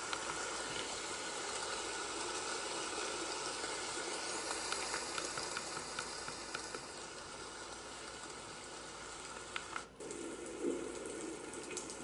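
Elesories white noise machine playing one of its water sounds: a steady hiss scattered with small ticks and crackles, like running water or rain. Just before ten seconds in it cuts out for a moment and a different sound begins as the machine is switched to another track.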